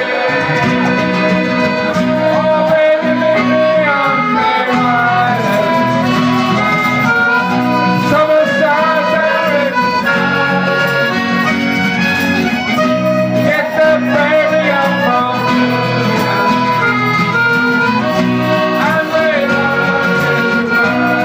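Live band music led by a piano accordion playing the melody in sustained and quick notes, with acoustic guitar underneath.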